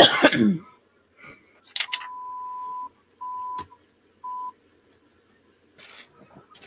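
An electronic beep at one steady pitch sounds three times, first for about a second, then about half a second, then a brief one. It comes after a short, loud burst that falls in pitch right at the start.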